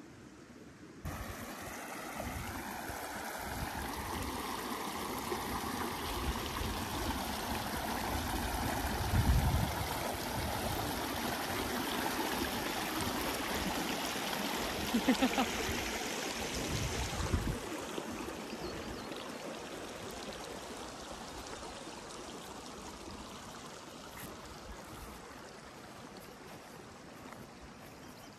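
Shallow rocky stream running over stones. It starts abruptly about a second in, grows louder through the middle and fades near the end, with a few dull thumps in the middle.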